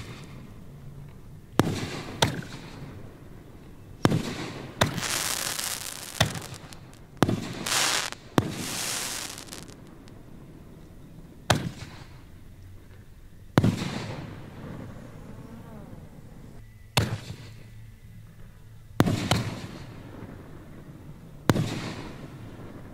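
Aerial fireworks display: shells bursting in a run of about fourteen sharp bangs spaced one to four seconds apart. Several bangs trail off into a second or so of hiss.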